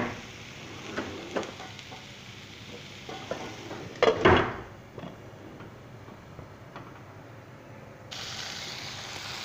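Shredded cabbage frying with a steady faint sizzle in a non-stick kadai, with a spatula knock at the start and a short clatter about four seconds in as a glass pot lid is set on the pan.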